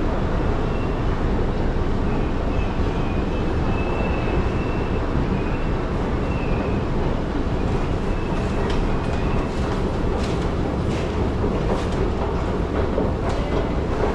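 A train moving slowly through a large station, a steady heavy rumble. A faint high wheel squeal wavers over it for the first several seconds, and sharp clicks come through in the second half.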